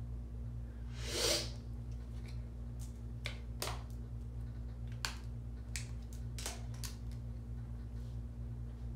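Light clicks and taps of small makeup items being handled and set down, irregular and one at a time, after a brief rustle about a second in, over a steady low background hum.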